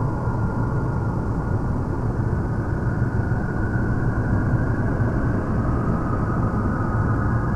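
Steady low rumbling ambience, with faint wavering high tones drifting above it.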